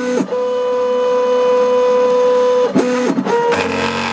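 Small homebuilt CNC router milling a plastic enclosure. Its stepper motors give a steady, loud whine as the cutter feeds along. The whine dips in pitch and climbs back at the start and again about three seconds in, as the axes change speed.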